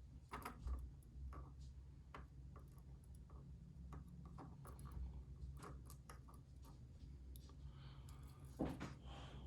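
Scattered light clicks and taps of small metal parts as a pin-tumbler lock is taken apart and its pins removed, over a steady low hum.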